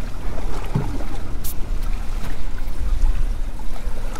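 Steady low rumble of wind on the microphone with water washing around a boat at sea.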